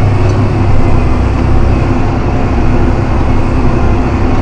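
John Deere 7280R tractor's diesel engine running steadily under load while plowing snow, a constant low drone.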